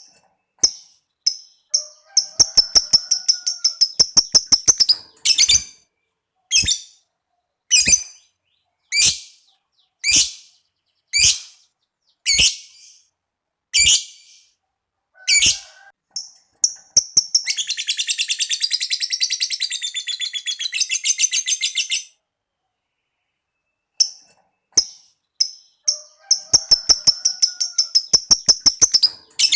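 Lovebird calling: a fast run of sharp, shrill ticking chirps, then single shrill calls about once a second, then a long unbroken rattling trill of about four and a half seconds, the 'ngekek' that fanciers prize. After a short pause the fast ticking run starts again.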